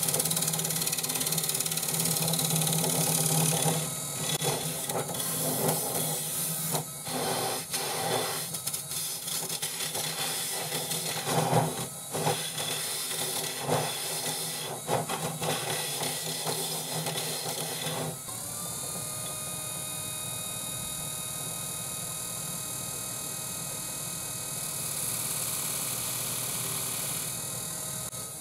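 Turning tool cutting the base of a spalted maple bowl spinning on a RIKON 70-1218VS midi lathe: a steady shaving hiss over the lathe's running, with irregular scraping strokes that come and go. About 18 seconds in the cutting stops, leaving the lathe running on its own with a steady hum and a faint whine.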